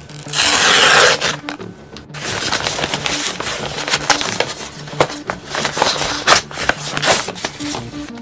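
Kraft paper mailer being torn open: a loud rip about half a second in, then crinkling and rustling of the paper as it is handled and its contents pulled out.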